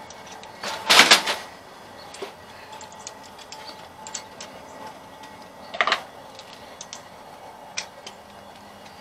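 Hand tools and sockets clinking on metal while the carburetor's mounting nuts are worked: scattered light ticks, with louder clanks about a second in and near six seconds.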